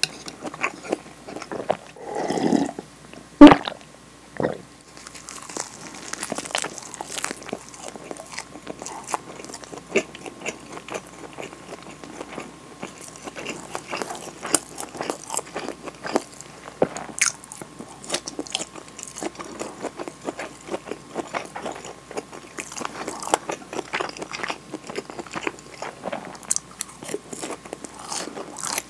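Close-up eating sounds: a short slurp of miso soup about two seconds in, then a loud sharp knock as the lacquered soup bowl is set down on the table. After that, continual biting and chewing of a nori-wrapped rice ball, with many small wet clicks.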